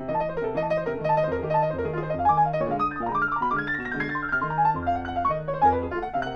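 Grand piano played solo: a regular bass line under a moving melody of higher notes.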